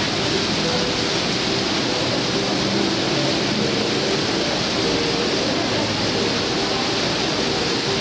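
Steady hiss of heavy rain falling on paving and water from a row of fountain jets splashing. Faint background music with long held notes sits underneath.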